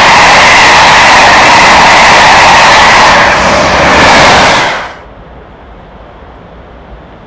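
A railway locomotive passing close by, very loud, with a dense rushing roar. About five seconds in it cuts off suddenly, leaving a quieter steady hiss.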